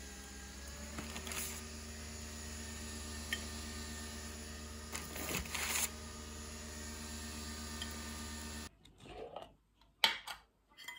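Steady machine hum, with metal tongs scraping and clicking against the air fryer basket as baked croissants are lifted out. The hum stops abruptly near the end, leaving a quiet room with a few sharp clicks as a glass jam jar is handled, one click much louder than the rest.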